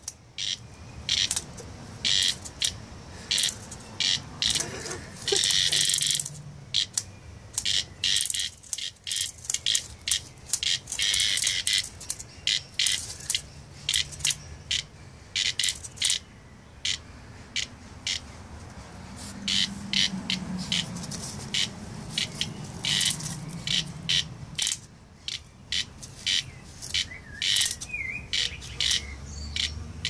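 Cicada giving short, irregular buzzes, several a second with a few longer ones, while a puppy paws and noses it on the ground. These are the distress buzzes of a disturbed cicada.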